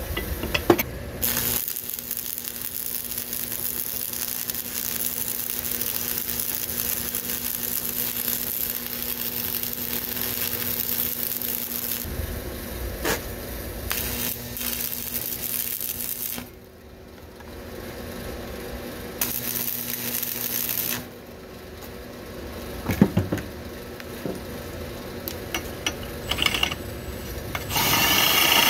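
Electric arc welding: the steady crackle and hiss of a stick-welding arc laying beads on a steel tube, stopping and restarting a few times with short pauses. Near the end a cordless power tool starts up.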